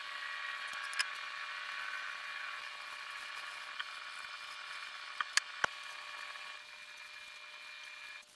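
Rag wiping wood stain onto a pine board: a steady rubbing hiss, with a few sharp knocks near the middle as the boards are handled. The rubbing drops away near the end.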